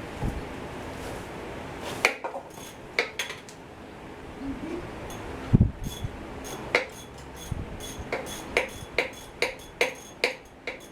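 Hand tools striking and clinking on engine parts: a series of sharp ringing metal taps starting about two seconds in, irregular at first and coming about two or three a second near the end.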